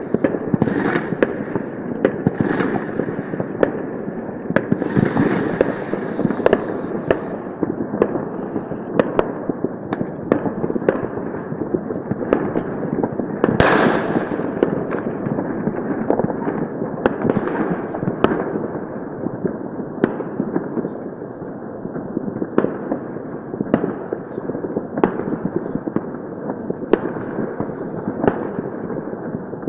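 New Year fireworks and firecrackers going off across a city, heard from a distance: a continuous mass of crackling and pops with frequent sharp bangs, the loudest about thirteen seconds in.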